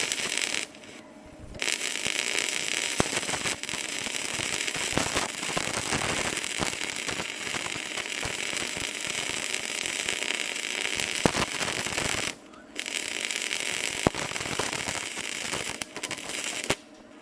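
Gasless flux-cored MIG welding arc from a MAG-285GMA welder running stainless-steel flux-core wire, crackling and spitting steadily as the bead is laid. The arc breaks off for about a second near the start and again briefly later, then stops shortly before the end. The welder judges the voltage still not high enough for this stainless wire.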